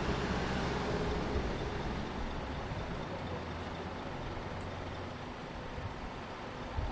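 Street traffic noise: a motor vehicle's engine running steadily past, easing off a little after about two seconds.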